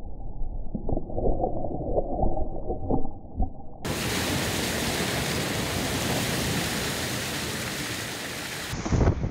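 Rushing water on an offshore racing yacht at sea. For the first few seconds it is muffled, with scattered knocks. From about four seconds in it turns suddenly into a loud, steady, full rush of water.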